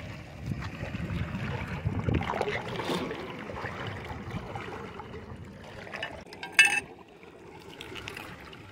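Seawater washing and trickling among shore rocks, uneven and busiest in the first few seconds. About two-thirds of the way through comes one brief, loud, high-pitched sound.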